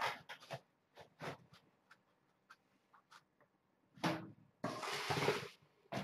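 Kittens moving about a play room: scattered short knocks and rustles, with a longer scratchy rustle about five seconds in.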